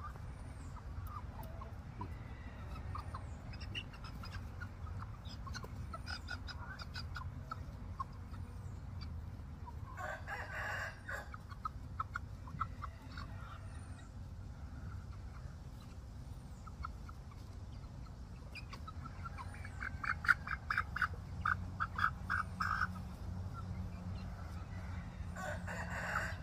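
Young chickens calling and clucking, with one longer call of about a second about ten seconds in and a run of quick clucks, several a second, about twenty seconds in.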